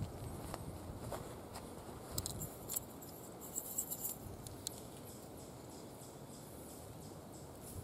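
Light clicks and rustles of hands handling a small copper salt container from a canvas tool roll, its cap being worked open, with a cluster of sharper clicks a couple of seconds in, over a steady outdoor hush.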